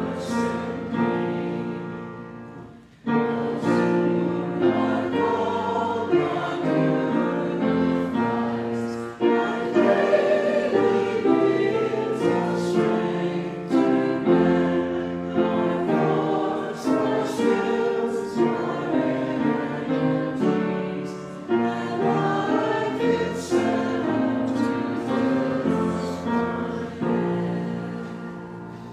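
Small church choir singing a hymn with piano accompaniment. There is a short break about three seconds in before the singing resumes, and the last chord dies away near the end.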